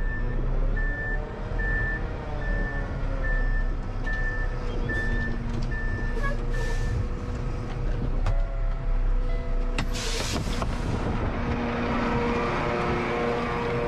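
Cement mixer truck's backup alarm beeping about twice a second over its diesel engine running, stopping about seven seconds in. A short hiss follows about ten seconds in, and the engine keeps running.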